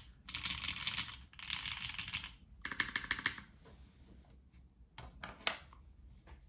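Typing on a zekk.works Ogre mechanical keyboard with Krytox-lubed Gateron Black Ink linear switches, a UHMWPE plate and GMK keycaps. Two fast runs of keystrokes and a quick flurry of clicks give way, about three and a half seconds in, to a few scattered single key presses.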